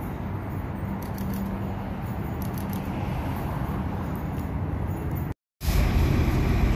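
Outdoor ambience with a steady low rumble of road traffic. It drops out completely for a moment near the end and comes back as louder street traffic.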